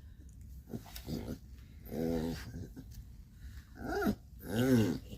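Pit bull making short playful growling grumbles, about four in a row, each one rising and falling in pitch. The last one, near the end, is the loudest.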